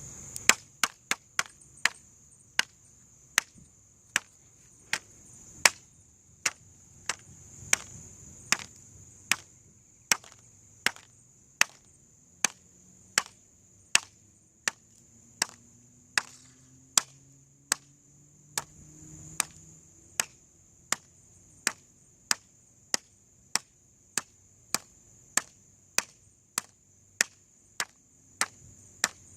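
Repeated sharp blows at a steady pace, about one every 0.8 s and a little quicker at first, over a faint steady high hiss.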